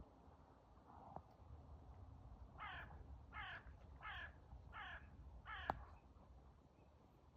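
A crow cawing five times in an even series, faint.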